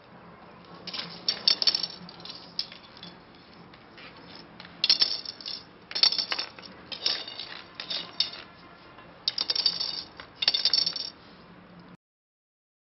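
Loose tent pole sections clinking and clattering against each other and the concrete floor as they are pulled apart and set down, in several short bursts of sharp clinks. They come apart because the rubber shock cord inside has worn out. The sound cuts out abruptly near the end.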